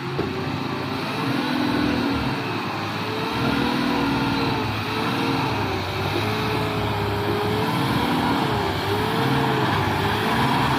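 Diesel truck engine working hard under load in mud, its revs rising and falling over and over, about once a second.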